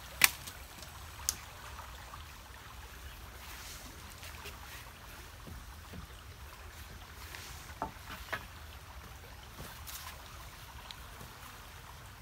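A few sharp knocks, the loudest about a quarter of a second in, another about a second later and two close together past the middle, over a steady low rumble.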